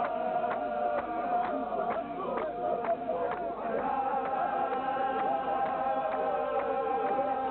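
Voices chanting a Chechen Sufi zikr (hadrah), one voice holding long wavering notes over the group. Sharp rhythmic beats about twice a second run under the chant, thinning out in the second half.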